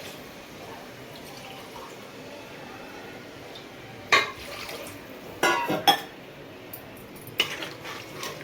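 Coconut milk poured into a pot of sautéed vegetables, a steady liquid pour, with a few sharp clinks against the pot about halfway through and again near the end.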